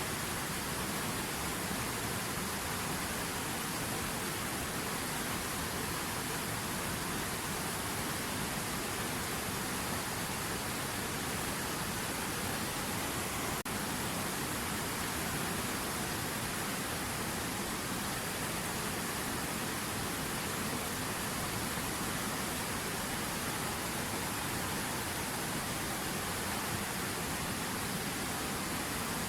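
River water running: a steady, unbroken rush of noise with no rhythm or change.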